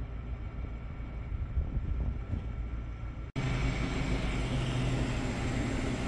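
Steady low rumble, then from a cut about three seconds in, a louder steady engine hum from a tour bus heard inside the cabin.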